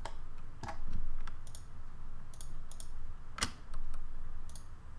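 About a dozen scattered, irregular clicks from a computer mouse and keyboard while editing in 3D software, the loudest about three and a half seconds in, over a faint low rumble.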